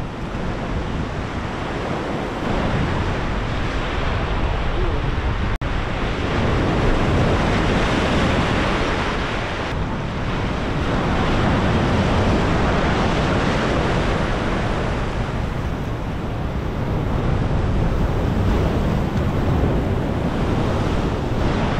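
Rough surf breaking and churning around the jetty pilings, mixed with wind buffeting the microphone; the wash swells and eases every few seconds.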